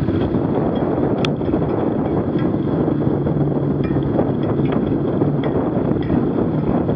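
Wind buffeting a microphone mounted low beside a moving wheel, with steady tyre noise on an icy, snow-dusted road. There is a sharp click about a second in and faint light ticks throughout.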